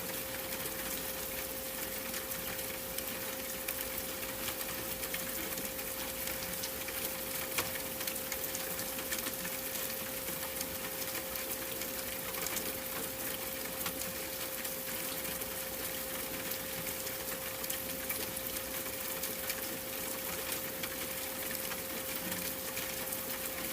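A steady 528 Hz pure tone held without change over a constant hiss of falling rain with a fine crackle of drops.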